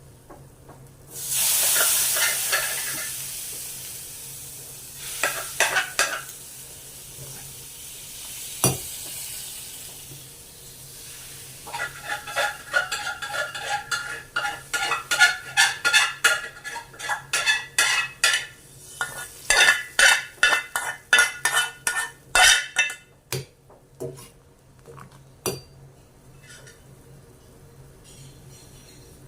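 Food hits hot oil in a pan and sizzles loudly about a second in, the sizzle fading over several seconds. Then a spatula stirs and scrapes against the pan in quick repeated strokes for about ten seconds, with a few scattered clinks near the end.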